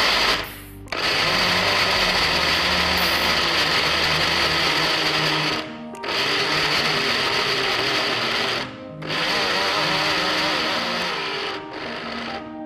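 Small electric grinder with a steel jar grinding walnuts, its motor running in pulses: four runs separated by short stops, the last one softer.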